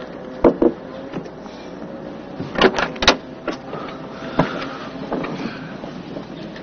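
A car's rear passenger door being unlatched and pushed open, a run of sharp clicks and knocks with the loudest cluster in the middle, as someone climbs out of the back seat.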